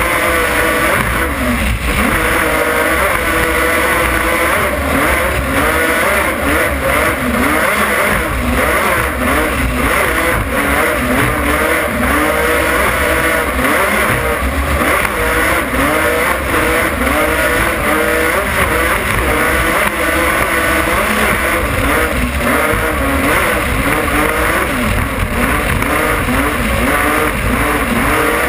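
Racing powerboat's engines running flat out at sea, their pitch wavering up and down every second or so as the hull slams and skips over the waves, over a steady rush of water spray and wind.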